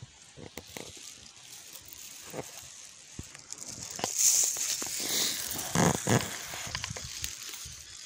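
Leafy blackberry undergrowth rustling and crackling as it is pushed through and handled, with many small snaps of stems. It grows louder past the middle, with a couple of heavier brushes through the leaves about six seconds in.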